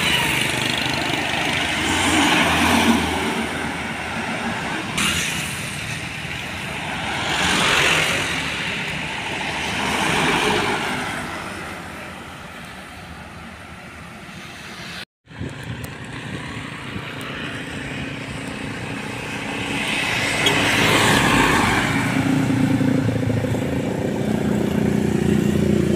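Road traffic passing close by: trucks, cars and motorcycles going by one after another, each swelling and fading. The sound cuts out for a moment about halfway through. Near the end a truck's engine hum and motorcycles pass.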